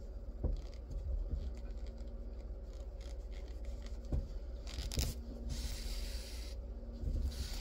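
Crocheted yarn hat being handled and rubbed by hand while its crown is sewn closed: soft rustling and scraping of yarn, with a few light knocks and a stretch of rubbing about six seconds in, over a low steady hum.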